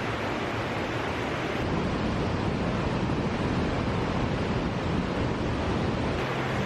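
Steady roar of rushing water from Hällingsåfallet, a waterfall with a 43-metre drop. The rush gets a little louder and shifts in tone about two seconds in, then settles back near the end.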